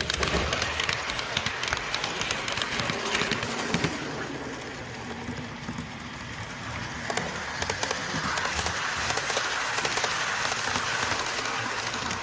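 Model train running on layout track: a steady rattling clatter of wheels on rail with many small clicks.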